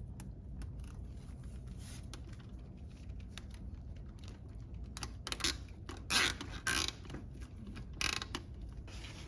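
A plastic zip tie being pulled tight through its ratchet head in several short zips, with faint clicks of handling before them.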